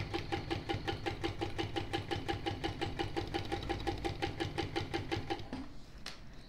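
ProSew 1933B industrial walking foot sewing machine stitching a seam at a steady rhythm of about eight stitches a second. It stops about five and a half seconds in, followed by a single click.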